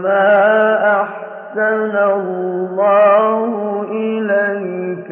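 A male reciter chanting the Quran in a slow, melodic style: long, ornamented phrases that bend up and down in pitch, broken by two short breaths.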